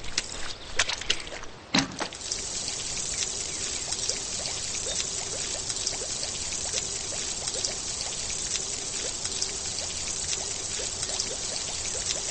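A few clicks and knocks, then from about two seconds in a steady hiss of pouring or spraying water, with small bubbling chirps in it.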